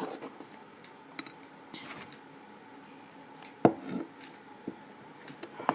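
A few scattered knocks and clicks of a utensil against a container while slime is being stirred, the loudest about three and a half seconds in.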